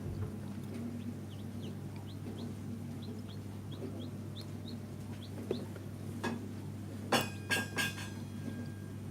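Newly hatched chicks peeping inside a homemade egg incubator: a run of short, high, falling cheeps over the steady hum of the incubator's fan. About seven seconds in come three louder, sharp sounds.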